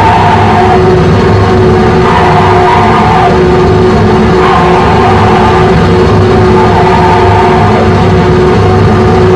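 Live harsh noise/electronic music from a cybergrind set: a loud, continuous wall of distorted noise over a rumbling low end, with one steady held tone running through it.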